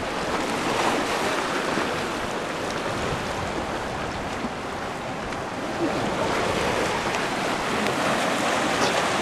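Sea surf washing against and over rocks: a steady rushing of water, with wind.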